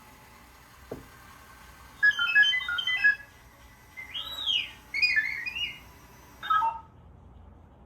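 Animated R2-D2 figure's speaker playing its beeps and whistles: a run of quick chirping beeps about two seconds in, a rising-then-falling whistle in the middle, more chirps right after, and a short warble near the end.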